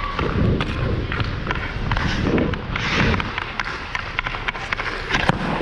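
Ice-hockey skates striding and scraping on the ice, with a series of sharp clicks as the stick blade handles the puck.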